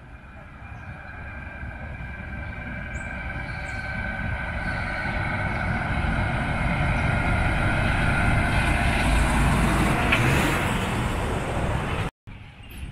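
A heavy truck approaching and passing on the road, its engine and tyre noise growing steadily louder over about ten seconds to a peak as it goes by. A whining tone in the noise sags slightly in pitch. The sound cuts off suddenly about twelve seconds in.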